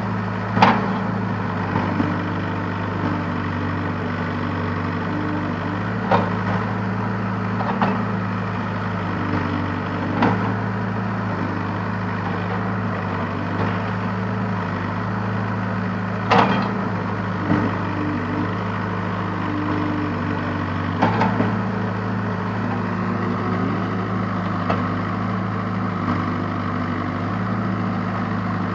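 Case backhoe loader's diesel engine running steadily under work, with sharp clanks every few seconds; the loudest is about half a second in, another about sixteen seconds in.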